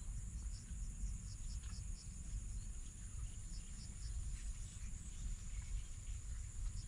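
Insects chirring in the surrounding grass: a steady high buzz with scattered short chirps over it, above a low, uneven rumble.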